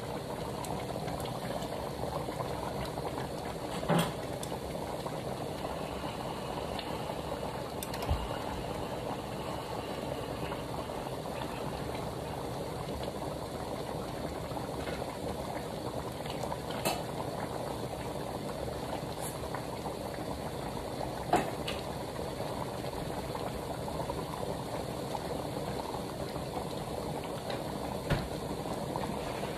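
Beef in a sweet orange sauce at a rolling boil in a large pan, a steady bubbling as the sauce is boiled down to thicken. A few sharp clicks are heard now and then.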